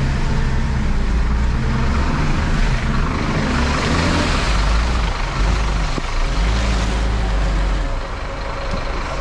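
Vehicle engine running, its note wavering up and down, with a rushing hiss that swells about three to five seconds in.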